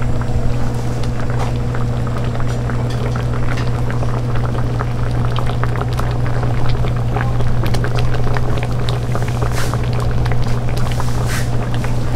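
Food cooking in a pan at a street-food stall: dense scattered pops and crackles over a steady low hum.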